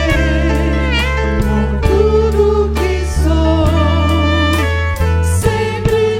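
Gospel worship song played by a band: a melodic lead line with vibrato over a steady drum beat and sustained bass.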